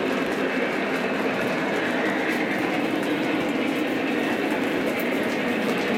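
Model freight cars rolling along the track: a steady rolling noise of small metal wheels on rail, with light clicking over the rail joints.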